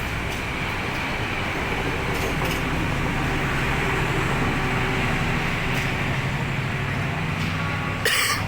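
A vehicle engine running steadily with a low, even hum, and a brief sharp noise near the end.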